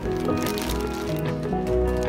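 Background music: held pitched notes over a low bass line.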